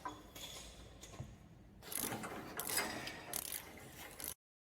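Ratchet wrench clicking in bursts as nuts are tightened onto the anchor bolts holding a washer extractor to its platform, picking up about two seconds in and cutting off abruptly near the end.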